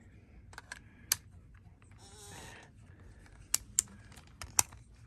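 A handful of sharp clicks and taps, with a short rustle about halfway through, from a camera tripod's quick release plate being handled and fitted.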